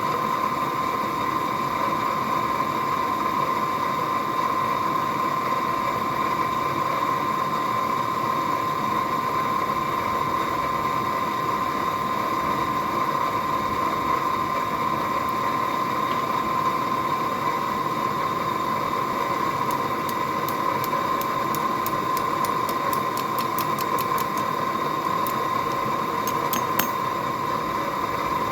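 Forge blower running steadily: an even hiss of air with a steady whine over it. Near the end comes a run of faint, light ticks.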